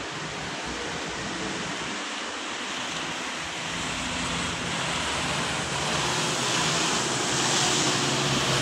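Road traffic noise: a steady hiss of tyres and engines from cars on the highway, growing louder near the end as a vehicle passes close by.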